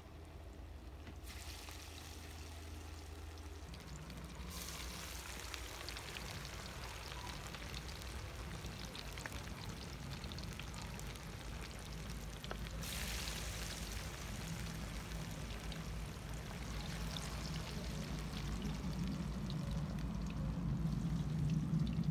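Battered fish pieces deep-frying in hot ghee in a karahi: a steady sizzling hiss full of small crackles, swelling up a couple of times. A low steady hum runs underneath and grows louder near the end.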